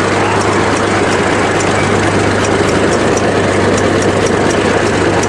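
Old bulldozer's engine running loud and steady as the machine moves along.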